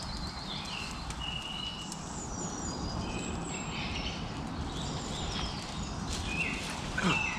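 Woodland birds calling and singing at dawn: scattered short, high chirps and whistles over a steady low background rumble. Near the end comes a louder call that falls in pitch.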